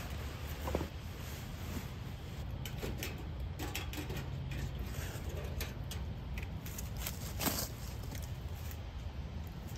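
Scattered rustles and light clicks of someone moving about and handling things on leaf litter, with two sharper clicks, one just under a second in and one about seven and a half seconds in, over a steady low rumble.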